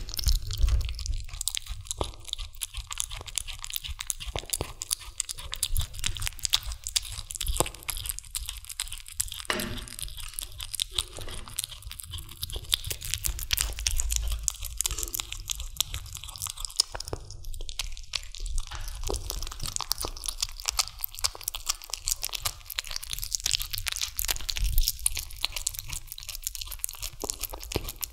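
A kitten biting and chewing on a raw chicken drumstick, a steady run of many small clicks as it gnaws and tears at the meat.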